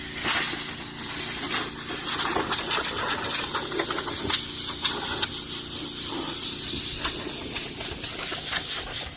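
Loud steady hissing over the steady hum of an engine, with many small clicks and rattles through it; the hiss cuts off sharply at the end.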